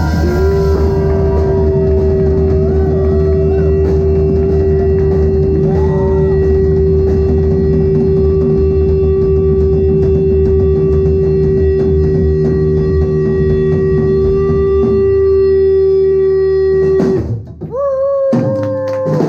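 Live band music, loud and droning: one held guitar note rings steadily over a low rumbling drone for most of the time, breaks off suddenly, and after a brief drop a new, higher held note starts near the end.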